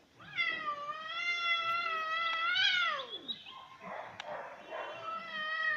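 Domestic cat yowling in a threat display at a confronting monkey. One long, drawn-out yowl rises near its end and drops away about three seconds in. A short hiss-like noise follows, then a second yowl begins near the end.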